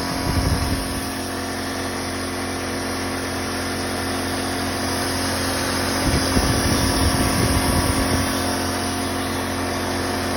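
High-pressure breathing air compressor running steadily, with a short burst of louder low rumble just after the start and another from about six to eight seconds in.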